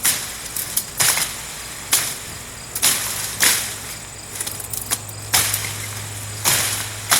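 A large knife forged from a farrier rasp slashing through tall bamboo-like stalks: eight or so quick chops, roughly one a second, cutting through easily.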